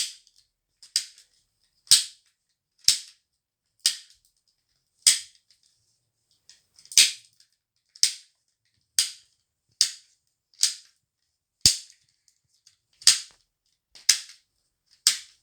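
Plastic puzzle ball clicking as its parts are twisted: about fifteen sharp clicks, roughly one a second, with a short pause about halfway through.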